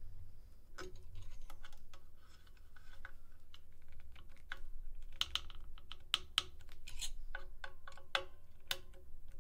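Hex key working the clamp screws of an aluminium jaw coupler on a CNC router's X-axis ball screw: a run of small, irregular metal clicks and scrapes as the screws are tightened.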